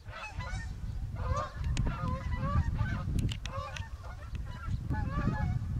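A flock of geese honking in flight, many short calls overlapping and repeating. Under them runs a low rumble of wind on the microphone.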